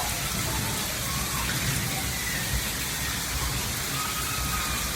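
Heavy rain pouring down steadily, an even hiss of water striking surfaces.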